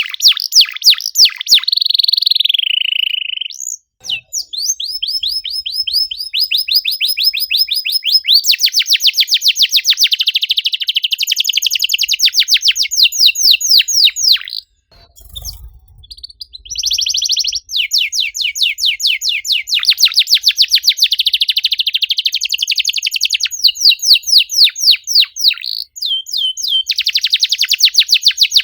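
A domestic canary singing in long, dense rolls of rapid repeated chirps. The song breaks briefly about four seconds in and again around the middle, then resumes.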